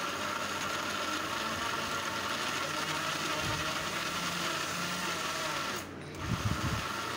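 Electric food chopper's motor running steadily as it grinds onion paste together with spiced minced meat for seekh kabab. It breaks off briefly about six seconds in, with a few low knocks, then runs on.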